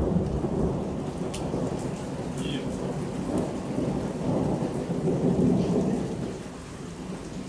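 Thunder rumbling over steady rain: the rumble fades, swells again about five seconds in, then dies away.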